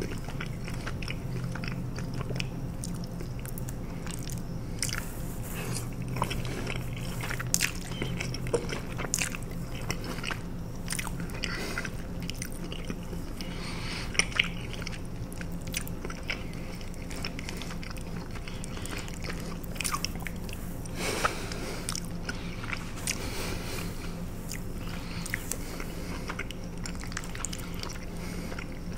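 Close-miked mouth sounds of someone eating fettuccine alfredo: wet chewing and lip-smacking, with many irregular sharp clicks, over a steady low hum.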